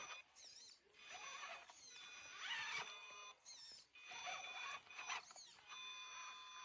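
Radio-controlled rock-crawler truck's electric motor whining in short throttle bursts of about a second each, several steady high tones at once.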